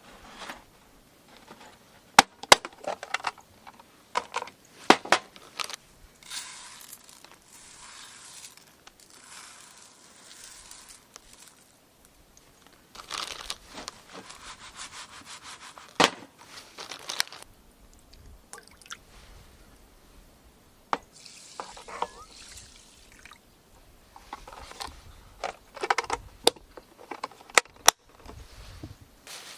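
Cooking preparation: sharp clicks and knocks of utensils and cookware, with three stretches of a few seconds each of pouring or running liquid.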